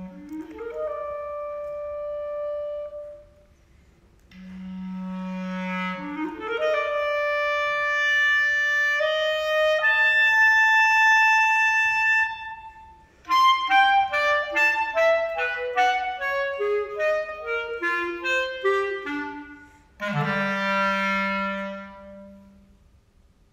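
Solo clarinet playing: a low note swoops up into a long held higher note, twice, with short pauses between phrases. Then comes a quick run of short detached notes stepping downward, and a last low note that sweeps up and dies away near the end.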